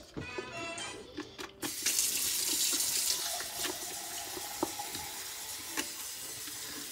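Steady stream of running liquid, like a tap running, starting about one and a half seconds in, with a few faint clicks.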